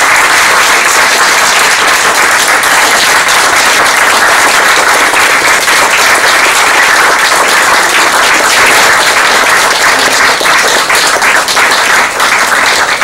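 Audience applauding steadily in a room; near the end single claps stand out as the applause begins to thin.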